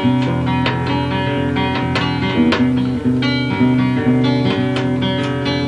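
Acoustic guitar played solo, chords picked with frequent note attacks and the notes ringing on over one another.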